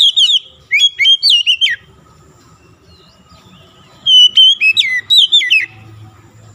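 Oriental magpie-robin singing: loud phrases of clear whistled notes that slide mostly downward in pitch. There are two quick runs at the start and another run of about a second and a half, about four seconds in.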